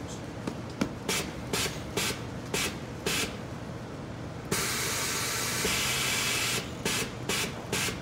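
Compressed air hissing from a Hunter tire changer's pneumatic controls as its bead rollers are jogged: about five short hisses, a longer hiss of about two seconds in the middle, then three more short hisses near the end.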